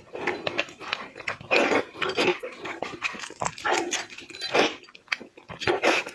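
Close-up eating sounds of a person sucking and chewing shellfish head meat and roe: wet slurps, smacks and chews in irregular bursts.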